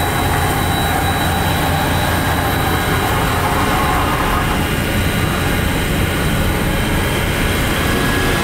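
Vacuum pump truck running with a loud, steady drone while it pumps out a grease trap.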